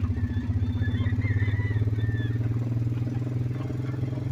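Small engine of a ride-on farm vehicle running steadily at low speed as it drives along, with an even, rapid pulse.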